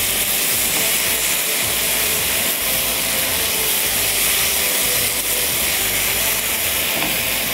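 Thin strips of undercut sizzling steadily in hot oil in a nonstick wok while being stirred with a silicone spatula.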